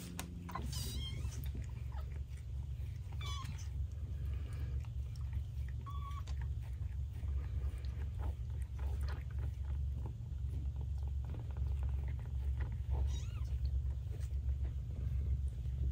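A cat purring steadily, close up, with a few brief high kitten mews scattered through.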